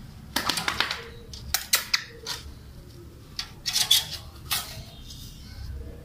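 Metal clinks and rattles of a small wire cargo cage being handled and opened, in a few short clusters of sharp clicks.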